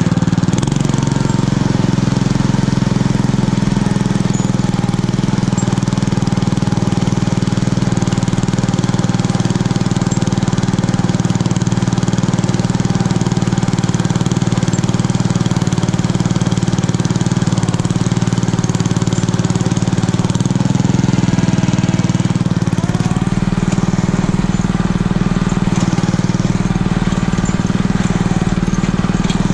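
Homemade garden tractor's 6.5 hp single-cylinder engine running steadily under load as the tractor plows wet snow with a front blade.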